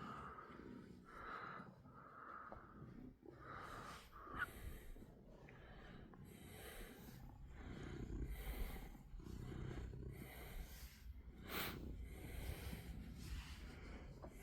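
Domestic cat making soft, short chirping cheeps, about four in the first few seconds, followed by quiet breathy snorts roughly once a second.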